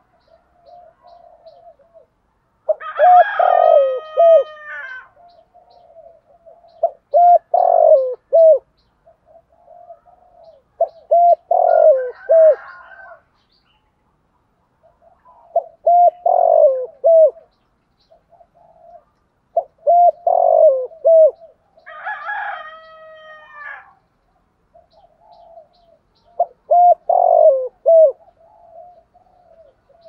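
Spotted dove cooing in the rapid 'thúc gù' style: phrases of a few low, arched coos repeating about every four seconds, the lure calling meant to stir up other male spotted doves. Twice, a longer, higher-pitched call from another bird breaks in.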